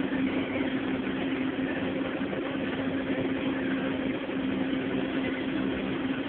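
Tractor diesel engine running steadily under load, pulling a land leveler that drags loose soil.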